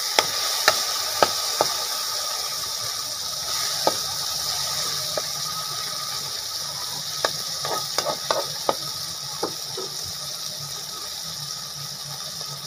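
Sardines, tomato and onion sizzling steadily in a wok, with a spatula stirring and clicking sharply against the pan now and then, several clicks close together about eight seconds in.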